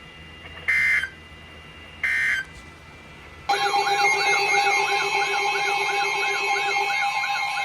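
Emergency Alert System weather-warning tones: two short screechy digital data bursts of the alert header, then, about three and a half seconds in, a loud alert tone starts, with steady tones under a warbling, siren-like sound that repeats about twice a second.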